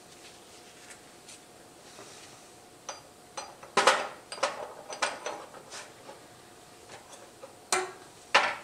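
Scattered clicks and knocks of a motorcycle hydraulic clutch master cylinder and its piston being handled and fitted together in a steel drain pan. The loudest cluster comes around four seconds in, with two sharp knocks near the end.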